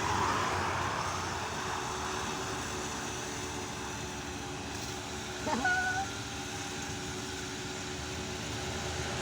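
Steady rumble and hiss of traffic on a toll road, with a brief high tone a little past halfway.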